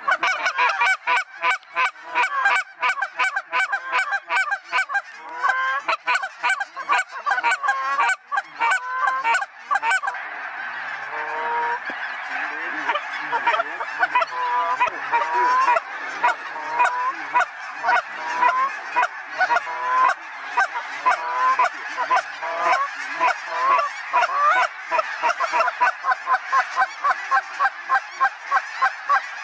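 A large flock of snow geese calling in flight overhead: a dense, continuous chorus of many overlapping short honks.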